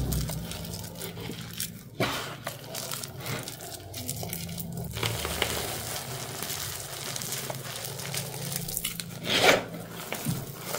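Hands crumbling and squeezing crunchy, chalky glitter-bomb clumps, a run of crunching and crackling as the lumps break and the powder falls. There is a sharper crunch about two seconds in and a louder one near the end.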